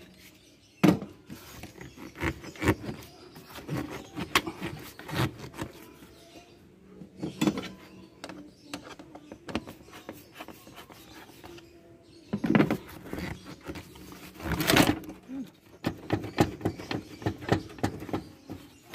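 Hose clamps on a rubber air intake hose being loosened with a screwdriver and the hose worked off its fitting: a run of small metallic clicks and knocks, with two longer rubbing scrapes in the second half as the hose is twisted and pulled free.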